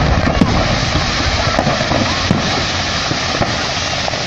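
Rumble of an exploding fireworks store, easing off slowly after the blast, with fireworks crackling inside it and a few sharp bangs going off.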